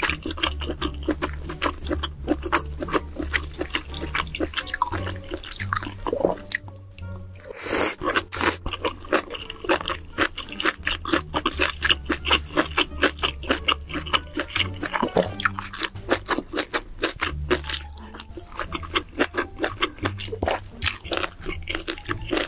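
Background music with a steady beat and bass, with mouth sounds of chewing a mouthful of spicy octopus and noodles under it.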